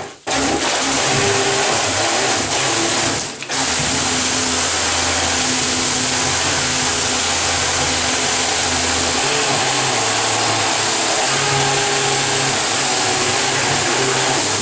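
A 53 mm jet unit with an electric motor running submerged in a bathtub: a steady motor drone over churning, rushing water from the jet stream. Power cuts out briefly at the very start and again about three and a half seconds in, then holds steady until it drops away at the end.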